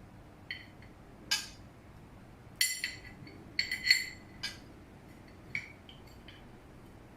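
Cake-stand plates clinking against each other as they are handled: about ten irregular, short ringing clinks, the loudest cluster a little before the middle.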